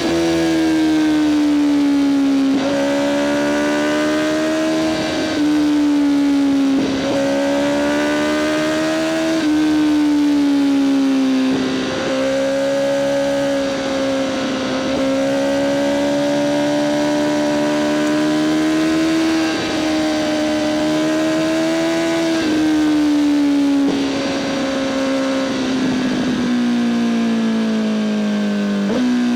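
Honda CBR1000RR-R SP Fireblade's inline-four engine through an Akrapovic exhaust, running at high revs under way, its pitch rising and falling gently with brief breaks every few seconds. Near the end the pitch falls steadily as the revs drop.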